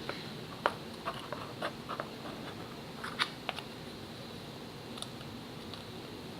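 Light clicks and taps of small terrain kit pieces being handled and set down on a tabletop. There are several in the first two seconds and two more a little after three seconds in, over a faint steady background.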